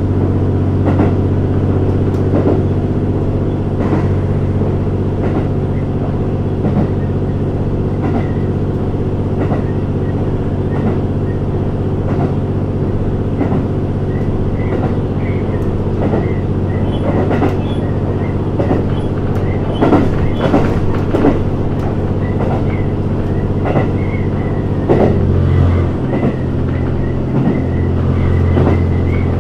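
GV-E400 series electric-diesel railcar running, heard from inside the front car: the diesel engine driving the generator gives a steady drone under irregular clicks of the wheels over rail joints. The engine's note changes about 25 seconds in.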